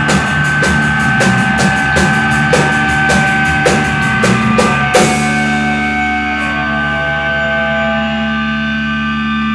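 Live rock band, drum kit and electric guitar, playing to the end of the song. Steady quick drum beats run up to a final crash about halfway through, then the drums stop and the last guitar chord is left ringing and slowly fading.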